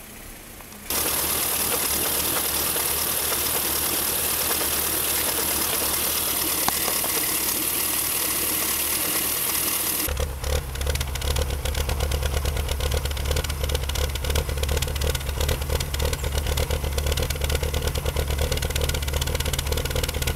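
BMW E36 M3's S50B30 3.0-litre straight-six idling roughly with an uneven, pulsing beat. For the first half there is mostly a steady hiss, and about ten seconds in a heavier, lumpy low beat takes over. This is the hard shaking and low idle that the owner traced to a new instrument cluster not passing the speed signal to the ECU, which upset its fuel tables.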